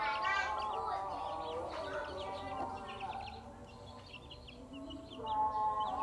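Chicks cheeping in quick, repeated short peeps under a brooding hen, with the hen's low clucking beneath, louder again near the end.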